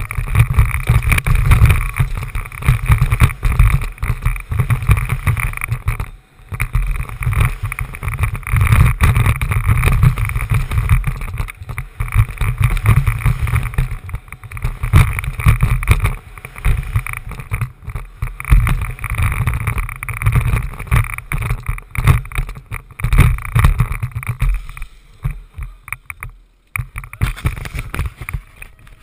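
Wind rushing and buffeting over a helmet-mounted GoPro's microphone as a BMX bike rides down the track at speed, with tyre rumble on the dirt. The noise comes in gusts and eases off near the end as the bike stops.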